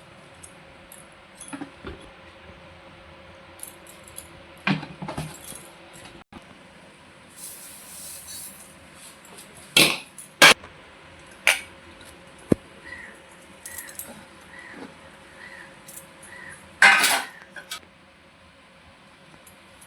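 Kitchen utensils and dishes being handled: irregular clinks, clicks and knocks of metal and plates. The loudest knocks come near the middle and again a few seconds before the end.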